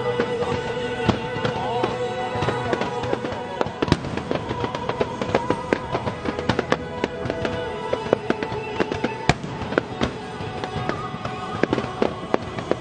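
Fireworks shells bursting with many sharp bangs and crackles in quick succession, growing denser from about four seconds in, over music with held notes.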